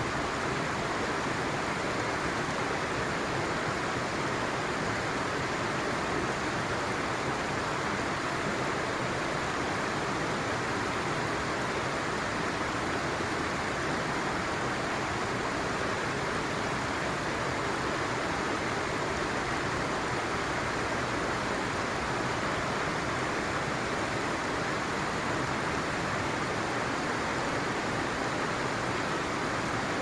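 Steady rushing of a shallow stream running over stones.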